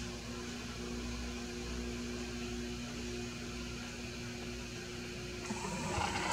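Steady mechanical hum with two steady tones underneath, from an unseen machine. About five and a half seconds in, the camera's zoom motor starts whirring as the lens zooms out.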